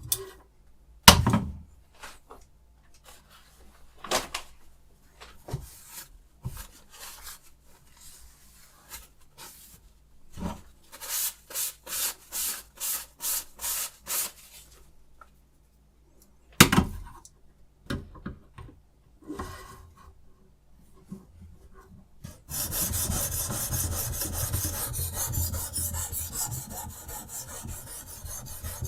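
Knife blade being sharpened on the stone of a Rehoo Pro RH006 guided sharpener. First a few sharp knocks and a run of about eight even strokes at roughly two a second, then, about two-thirds of the way in, fast continuous back-and-forth rasping of stone on steel.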